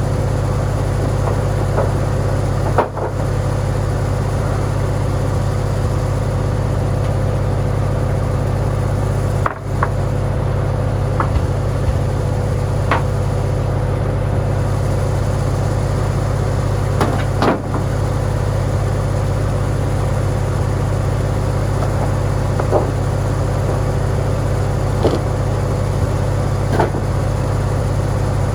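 Farmall tractor engine running steadily at a constant speed as it powers the board edger, with a few sharp knocks here and there.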